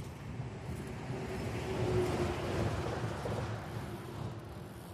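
A road vehicle passing: a rushing tyre-and-engine noise that swells to its loudest about two seconds in and then fades, over low wind rumble on the microphone.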